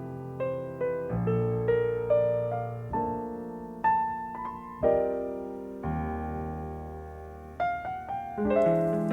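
Piano music: slow chords and melody notes struck about once a second, each ringing and fading away. Near the end a quicker, brighter passage begins.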